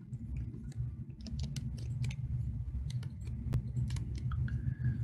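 A quick run of sharp clicks from computer controls, a mouse and keyboard, bunched in the middle second or two, over a low steady hum.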